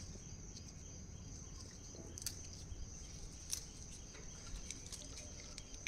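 Faint, steady high chirring of insects, with a few sharp clicks about two and three and a half seconds in.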